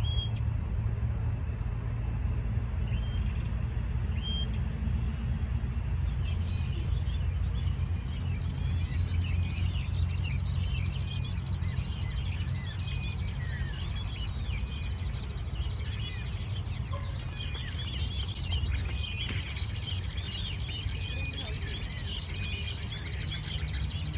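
Small birds calling: a few short, sparse chirps at first, then from about six seconds in a dense run of rapid, chattering calls. A steady low rumble runs underneath.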